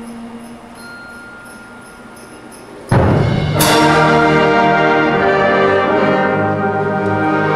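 Music: faint held notes, then about three seconds in a sudden loud chord of many notes that is held on.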